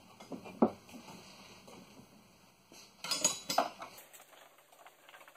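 Metallic clicks and clinks of brake lines being worked out of their holder: one sharp click about half a second in, then a quick rattle of clinks around three seconds in.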